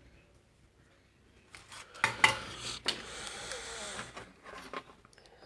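Metal hand tools clinking and knocking on a workbench, with one loud knock about two seconds in, followed by a second of rubbing and scraping and a few more light clicks.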